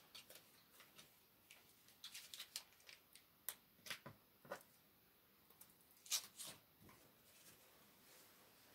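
Faint, scattered taps and light scrapes of a paintbrush working paint, a few clustered strokes at a time, with near silence between them.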